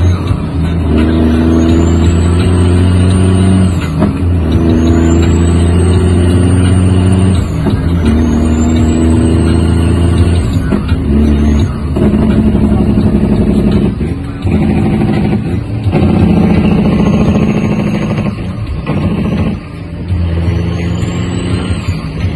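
Heavy truck's diesel engine from inside the cab, pulling up through the gears of a manual transmission. The engine note and a high whistle climb in each gear, then break off with a short dip at each upshift, several times over.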